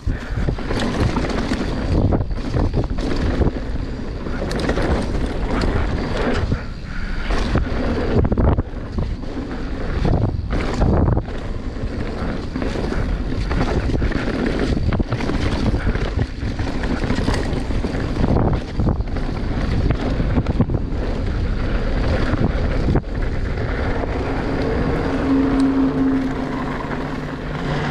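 Wind rushing over the microphone and tyres on dirt during a fast mountain-bike descent, with frequent knocks and rattles from bumps and landings. A steady low hum comes in near the end.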